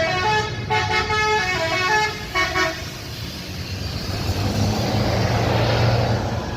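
Bus telolet basuri horn playing a quick run of musical notes for about three seconds. Then the bus's engine and tyres grow louder as it passes.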